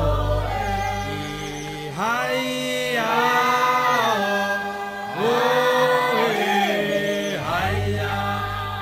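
Bunun vocal chant: several voices sing long held notes together, with new phrases sliding up in pitch about two seconds in and again about five seconds in. A low steady hum sits under the singing at the start and again near the end.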